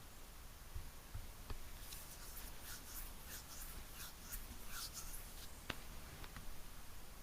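Faint scratchy rustling for about three seconds, with a couple of sharp clicks before and after it.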